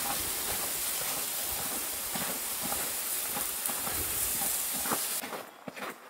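A gust of wind making a steady rushing hiss that stops abruptly about five seconds in, with a few footsteps in snow.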